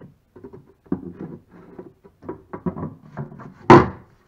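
Plywood locker cover being handled and fitted onto a wooden boat's stern, knocking and scraping against the wood in a run of light taps, then one sharp wooden knock near the end.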